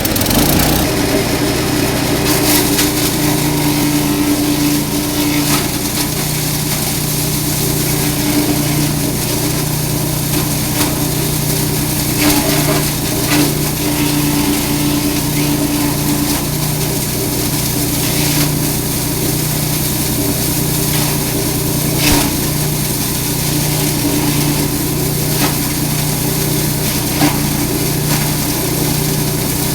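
Grass chopper machine running steadily while chopping forage, with a steady hum and a few sharp knocks as material goes through the blades.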